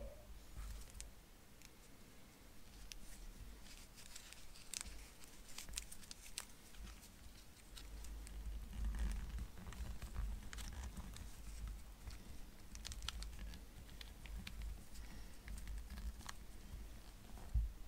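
Faint rustling of nitrile-gloved hands with scattered small clicks and ticks as the piston and its rubber dust boot are worked into a brake caliper.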